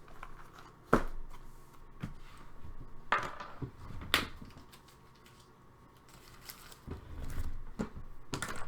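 Scattered clicks, taps and light rustling of card boxes and packs being handled on a tabletop, with the sharpest knock about a second in and a cluster of handling near the end.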